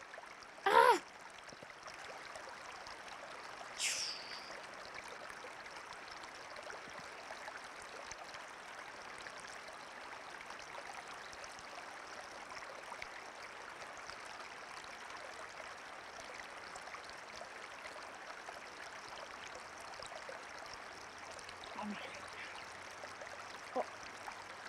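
Steady rushing of a running stream. A short, loud voice-like sound that slides in pitch comes about a second in, and a brief high-pitched sound comes near four seconds.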